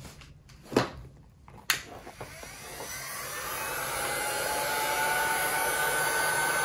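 A couple of light knocks, then a heat gun starts up a little under two seconds in, its fan rising over about two seconds to a steady blowing with a whine, drying acrylic leather paint on a painted leather case.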